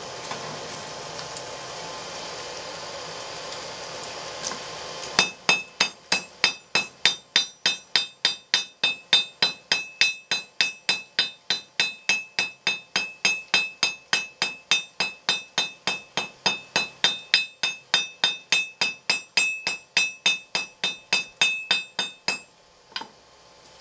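Blacksmith's hammer striking hot steel on an anvil, an even run of about two to three blows a second, each with a bright ring, starting about five seconds in and stopping shortly before the end. The smith is bending one tine of a split bar aside.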